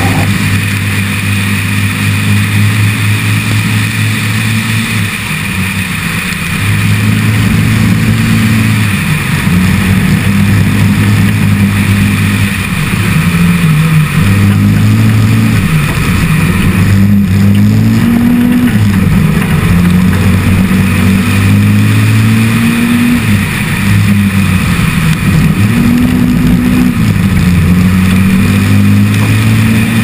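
Audi Quattro Group 4 rally car's turbocharged five-cylinder engine, heard from inside the car under hard acceleration: the revs climb and drop back repeatedly through the gears.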